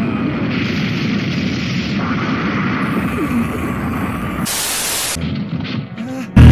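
Anime energy-blast sound effect: a sustained rumbling roar, with a burst of hiss about four and a half seconds in. It fades near the end as loud music cuts in.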